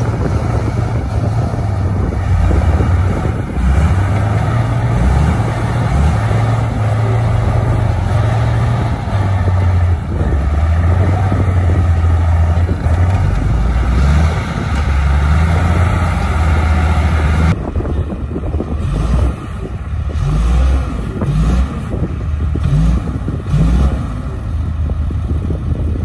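Diesel engines of two crawler bulldozers, one a Komatsu D58E, working under load as they push heavy dirt, the engine note rising and falling.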